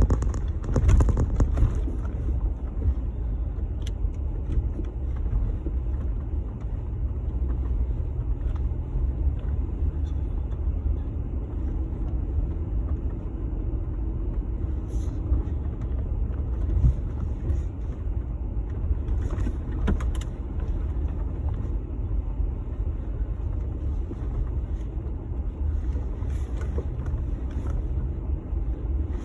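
Jeep Gladiator pickup running, a steady low engine and road rumble, with a few light clicks.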